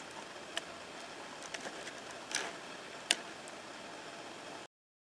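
A few light clicks and taps from a hard shell box being handled in a gloved hand, over a steady hiss; the sharpest click comes about three seconds in, and the sound cuts off abruptly near the end.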